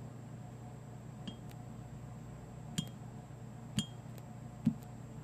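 Kitchen items being handled: a handful of light, scattered taps and clinks, a few with a short glassy ring, the last one a duller knock.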